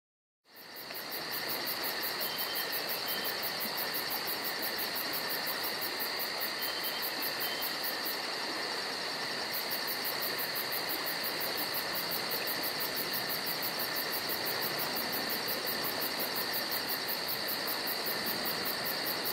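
A steady chorus of trilling insects, in a high pitched band over an even hiss, fading in about half a second in.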